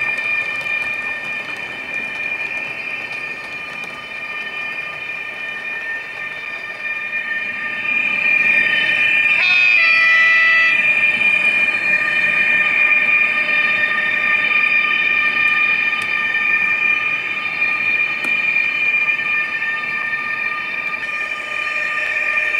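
Digital sound decoder of an HO-scale Trix BR 147 TRAXX AC3 model electric locomotive playing a steady electric traction whine through the model's small speaker, over the rolling noise of the model train on the track. About ten seconds in, a brief set of stepped, shifting tones sounds, and the whole thing gets louder from about eight seconds in.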